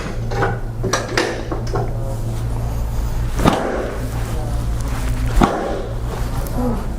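Spinal joints cracking during a chiropractic adjustment: two sharp pops about two seconds apart, past the middle, over a steady low hum.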